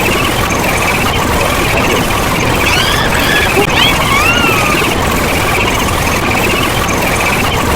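A loud, dense jumble of many sound effects layered over one another, with warbling tones and a few gliding whistle-like tones about three to four seconds in.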